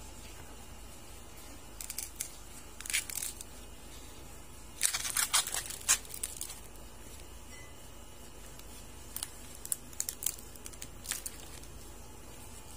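Dry corn husks being torn and peeled back by hand from an ear of yellow corn: a few short papery rips, the loudest cluster about five to six seconds in, then lighter crackling as the silk is pulled away near the end.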